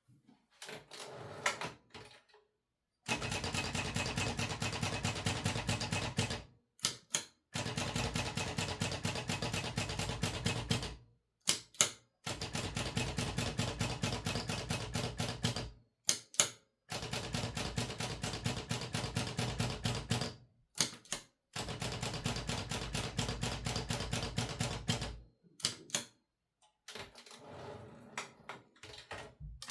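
1968 Olivetti Linea 88 manual typewriter being typed on: five runs of rapid keystrokes of three to four seconds each, separated by short pauses with a few louder single clacks. Softer, sparser clicking comes near the start and near the end.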